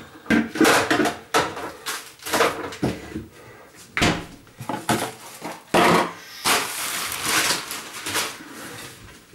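Close-up handling noise: a run of knocks and clatters, with longer stretches of rustling about four seconds in and again around six to seven seconds in.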